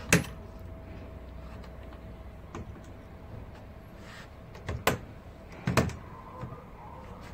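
Lids of a stainless-steel machine cabinet being unlatched and opened: a sharp metallic click from the top lid's latch just after the start, a smaller click, then two louder clunks about five and six seconds in as the front panel's latch is worked.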